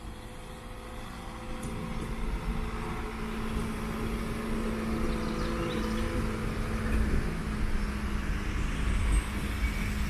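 Engine of a road tourist train, a small tractor unit pulling passenger carriages, running with a steady hum as it drives past, getting louder toward the end.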